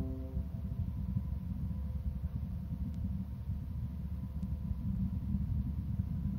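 Steady low rumble, with a faint steady hum tone over it. The last notes of a piano chord ring out and fade in the first moment.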